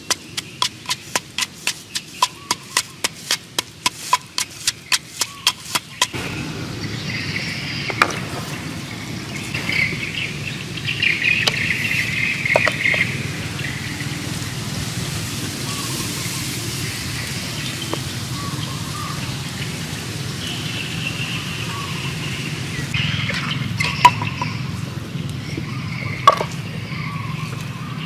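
Wooden pestle pounding chilies, garlic and salt in a wooden mortar, about three sharp knocks a second, stopping about six seconds in. Then a steady outdoor background with a few single knocks.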